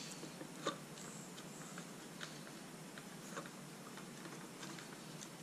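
Scattered light clicks and taps of the Dyson DC43 vacuum's parts being handled as the replacement internal-hose piece is slid into place, the clearest about a second in, over a faint steady background.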